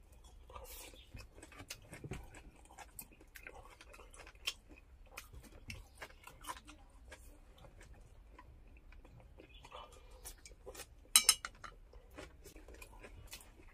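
Scattered light clicks and clinks of small hard objects being handled, with a louder clatter about eleven seconds in.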